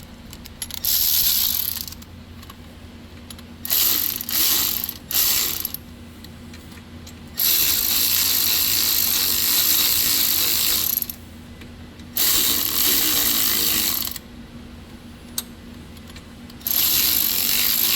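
Hand ratchet clicking in about six runs of rapid strokes as the 8 mm nuts holding the carburetor to the engine's intake are run down on their studs. The longest run lasts about three and a half seconds, starting near the middle.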